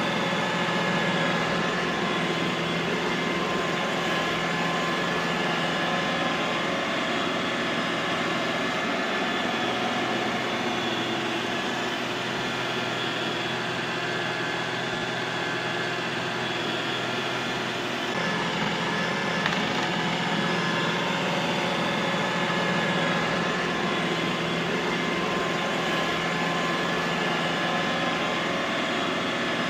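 Robot vacuum cleaner running steadily: a whirring motor-and-fan hum with a few steady tones over an even hiss, the low hum shifting slightly about eighteen seconds in.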